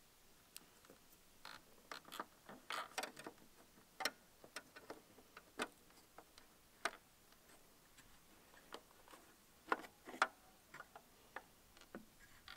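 Scattered plastic clicks and small rattles of Hyundai i30 tail-light bulb sockets being twisted into and out of the rear light housing. The clicks come unevenly, bunched a couple of seconds in and with two sharp ones near the end.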